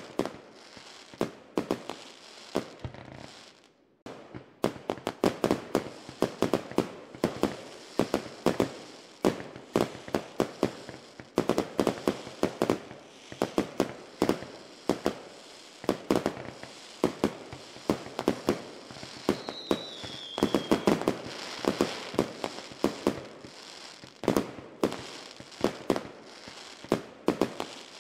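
Fireworks going off in rapid, irregular bangs, several a second, with a brief lull about four seconds in. A short falling whistle comes about two-thirds of the way through.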